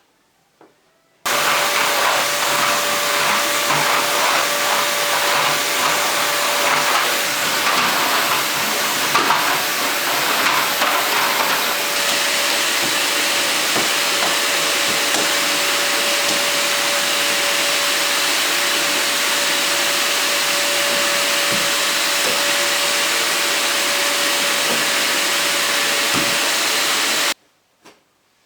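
Vacuum cleaner running steadily with a constant whine. It starts abruptly about a second in and stops abruptly near the end, and it sounds more uneven during roughly its first ten seconds.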